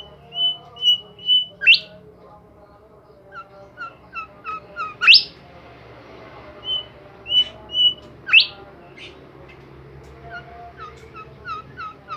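A songbird singing vigorously: repeated phrases of short, even whistled notes, each phrase ending in a loud, sharp rising whistle, about every three seconds.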